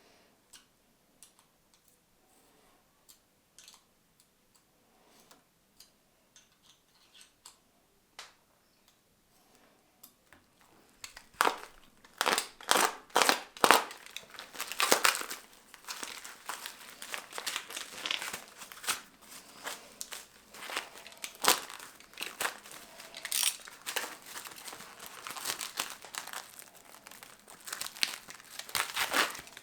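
Plastic packaging being crinkled and torn off scooter parts. A few faint clicks come first, then irregular, louder crackling from about eleven seconds in.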